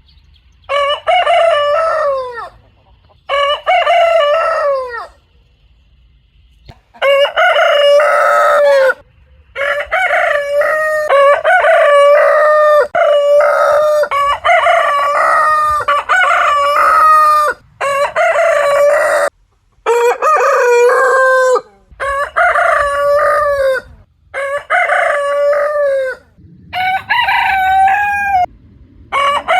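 Rooster crowing over and over: about a dozen loud cock-a-doodle-doo crows, each one to two seconds long, with short breaks between them and one longer pause about five seconds in.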